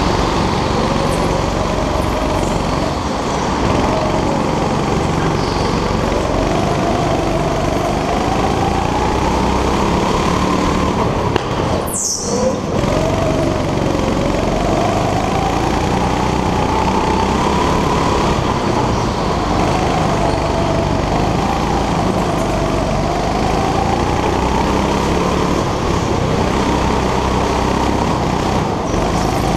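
Go-kart engine heard from on board at racing speed, its pitch rising and falling over and over as the driver opens and lifts the throttle through the corners. The sound cuts out for a moment near the middle.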